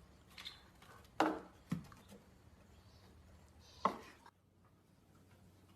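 A few short, sharp knocks, the loudest about a second in and another near four seconds in, over faint room noise.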